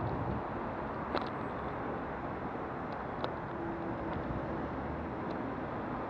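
Steady rushing wind and road noise on a cyclist's camera while riding, with a sharp click about a second in.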